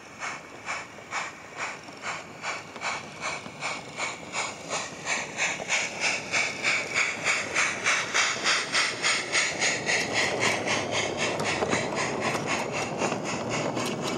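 Steady steam-style chuffs from a battery-powered, radio-controlled 16 mm scale model 0-6-0 tank locomotive pulling away with a goods train, the beats quickening and growing louder. Near the end the rolling rattle of the goods wagons on the track takes over.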